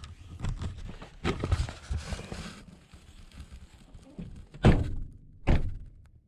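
A run of knocks and rustling, then two loud thumps about a second apart near the end, after which the sound cuts off.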